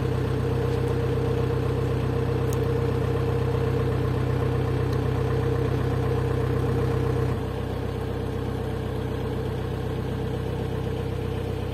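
Narrowboat engine running steadily while the boat cruises along the canal, a constant low drone that steps down a little in level about seven seconds in.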